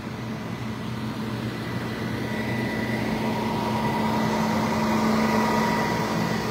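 Steady drone of big emergency trucks' engines idling, with a constant hum running through it, growing a little louder midway.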